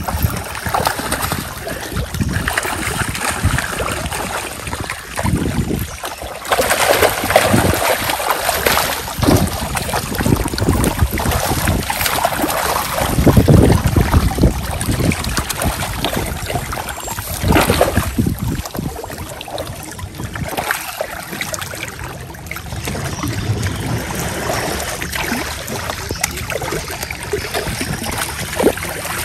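Many fish thrashing and splashing at the surface inside a net as it is drawn in, a continuous churning of water with louder surges of splashing several times.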